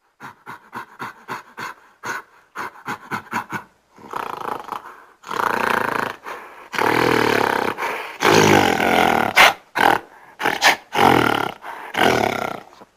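Ape or monkey calling: a quick series of short rhythmic pulses, about four to five a second, then from about five seconds in longer, louder calls with a rough, roaring edge.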